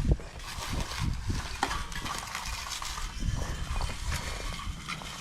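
Hand tools scraping and tapping on freshly poured wet concrete during finishing, with irregular scrapes, light clinks and a few dull thumps.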